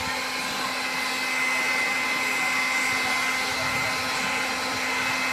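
Hot-air heat gun running steadily, its fan blowing with an even hum and a faint high whine, used to warm the plastic bumper so the dents can be worked out.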